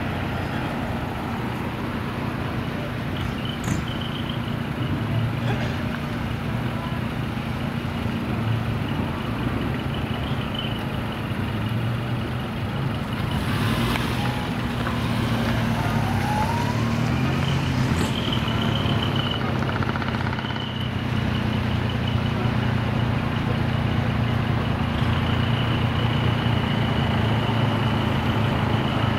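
Heavy diesel truck engines running steadily, with a brief hiss about halfway through.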